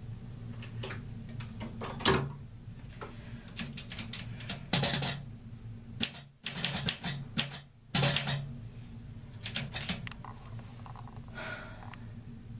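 Manual typewriter being typed on in short runs of rapid keystrokes, with pauses between the runs.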